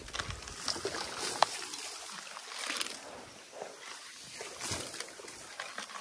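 Rustle of wild rice stalks being bent over a canoe and struck with wooden knocking sticks, with a few sharp taps; the sharpest comes about a second and a half in.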